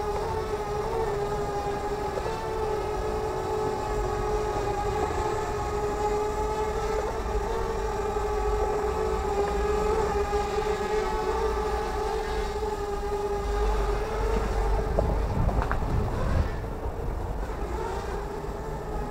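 Fairy Air 33 Camero toy quadcopter's motors and propellers humming steadily in flight, heard close up through its onboard camera, the pitch wavering slightly. A low rumble swells about three quarters of the way through.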